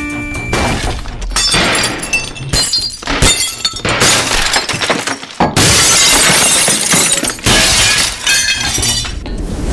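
Glass shattering and objects crashing again and again, the longest and loudest crash about halfway through: a school laboratory and its glassware being smashed up.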